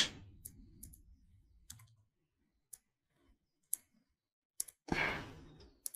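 Sparse single clicks of a computer mouse and keyboard, roughly one a second, as text is selected and copied on a PC, with a brief soft hiss about five seconds in.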